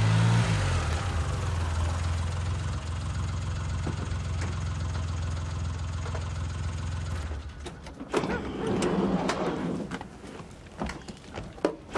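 A motor vehicle's engine running steadily with a low hum, fading out about seven seconds in. A few sharp knocks follow near the end.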